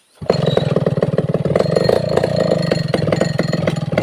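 Two-stroke chainsaw engine starting up abruptly about a quarter second in and then running steadily at high speed.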